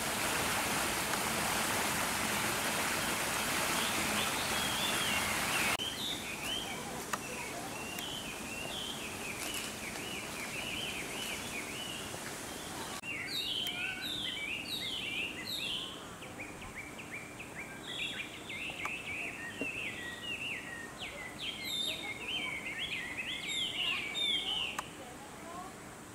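Wild birds chirping in quick, repeated short phrases, busiest in the second half. For about the first six seconds a steady hiss covers them, then cuts off abruptly.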